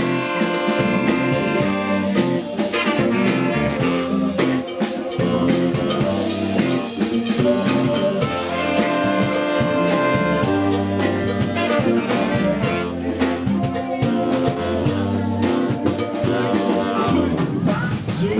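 Live band playing an instrumental passage of a rock song, with no singing.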